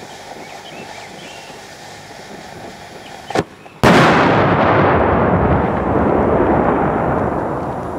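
Ultimate Pyro "Strange" large firecracker detonating with one loud blast a little under four seconds in, after a steady hiss and a short pop. The blast is followed by a dense noise that slowly fades over several seconds.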